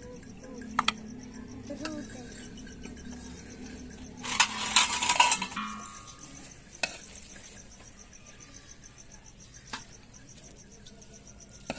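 Metal cooking utensils knocking against a pot, with a few single clinks. About four to five and a half seconds in there is a loud clattering scrape that leaves a short metallic ring.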